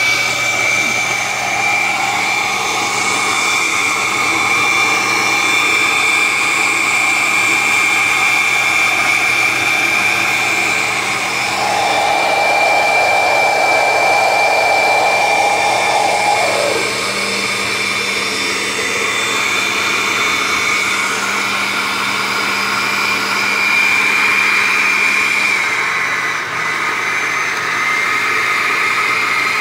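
Oster 14-speed countertop blender motor running steadily while blending a thick fruit smoothie. A higher whine joins about twelve seconds in and slides down and away a few seconds later, and the motor's pitch drops slightly near the end.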